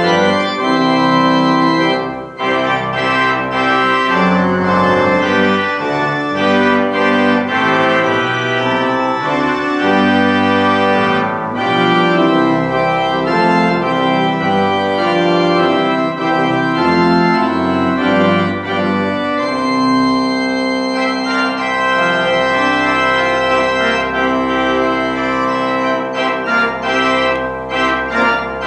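Organ playing a postlude: sustained chords with moving notes, settling into a long held chord about two-thirds of the way through, then moving again near the end.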